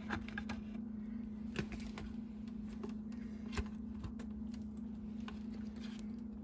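Scattered light clicks and crinkles of a disposable aluminium foil roasting pan and a raw chicken being handled, with three sharper taps near the start, about a second and a half in and about three and a half seconds in. A steady low hum runs underneath.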